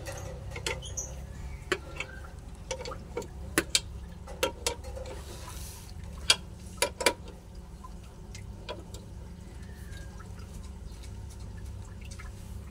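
Irregular metallic clicks and clinks from a socket wrench with a sliding T-bar handle tightening the lower mounting nut of a rear shock absorber. The clicks stop about seven seconds in, leaving a low steady background hum.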